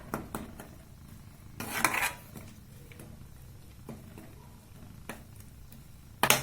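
A spoon scraping and tapping against a kadhai while a thickening jaggery mixture is stirred. There are a few scattered scrapes and clinks, and the loudest, longer scrape comes about two seconds in.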